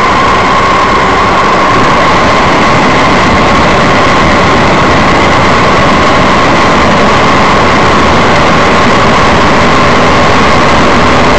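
Weight-shift microlight trike's engine and propeller running steadily, loud and close, with a constant whine over wind rush in the open cockpit.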